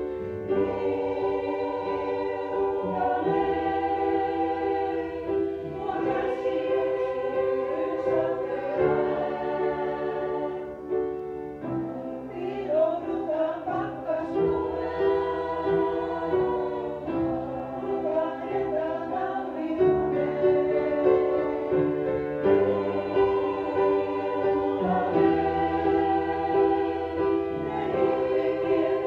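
Amateur choir singing in parts with piano accompaniment, holding sustained chords that change every second or two.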